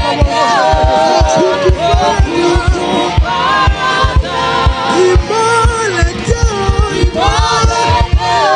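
Live gospel worship music: several voices singing over a band, with quick, busy bass-drum beats.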